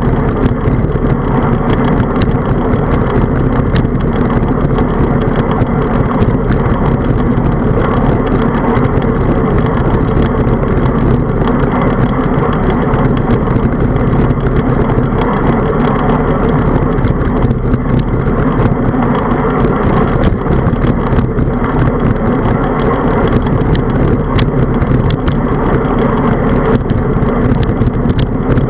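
Steady, loud rumble of wind buffeting and tyre-on-road noise picked up by a handlebar-mounted camera on a moving bicycle, with a few light clicks and rattles from the bike and mount.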